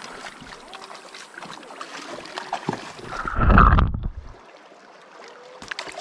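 River water splashing and sloshing in the shallows, with a loud rushing burst a little over halfway through.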